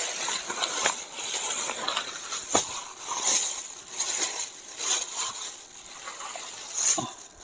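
Thin plastic bag crinkling and rustling as it is handled and opened, with a few sharp crackles.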